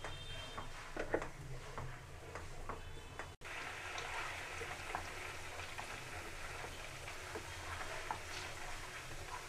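Butter cooking down into ghee in a kadhai while a wooden spatula stirs it: scattered pops and clicks at first, then, after a sudden break about three seconds in, a steady sizzle as the clarified butter bubbles.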